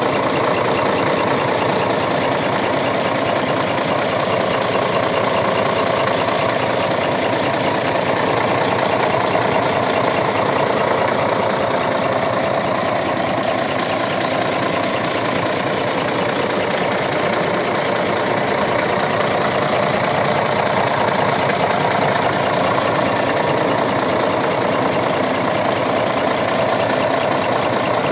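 Scania 111 truck's turbocharged 11-litre six-cylinder diesel engine running steadily, with no revving.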